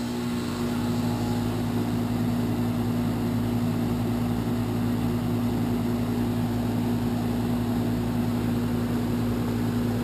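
A 12-year-old heat pump outdoor unit running loudly just after start-up: a steady, deep electrical hum with a rushing noise that comes in at the start and builds over the first second, then runs level.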